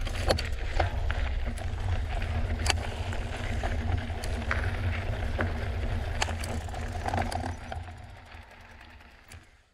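Drop-bar mountain bike riding a rocky dirt trail: a steady low rumble from the tyres and wind, with scattered sharp clicks and rattles from the bike. The sound fades out over the last two seconds.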